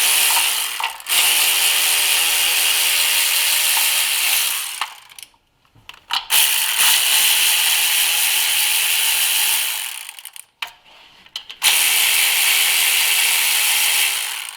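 Electric ratchet running in four spells of one to four seconds each, spinning out 10 mm bolts.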